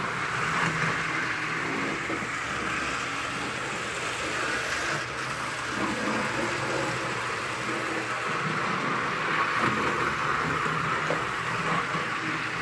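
Steady whirring hum of an HO-scale model train running on its track, even throughout.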